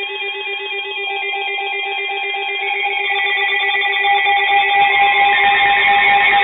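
Several weather alert radios sounding their electronic alarms at once, signalling an incoming weather warning: warbling two-pitch beeps over a fast-pulsing steady tone. More alarm tones join about three seconds in and the sound grows louder.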